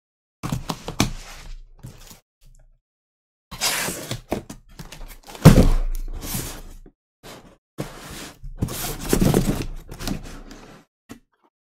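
Cardboard shipping case being handled and turned over on a table: irregular scraping and rustling of cardboard, with dull thunks as the case is knocked and set down, the loudest about five and a half seconds in.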